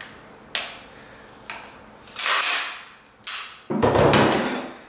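AR-15 rifle parts being handled and fitted together: a run of sharp metallic clacks, about one a second. The loudest and fullest comes near the end, as the rifle is set down on the wooden table.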